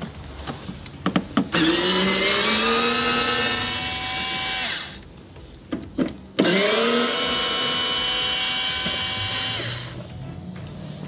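Tacklife cordless electric screwdriver running twice for about three seconds each, backing out bumper-cover screws with a Torx bit; its motor whine rises in pitch as it spins up, then cuts off. A few short clicks come just before each run.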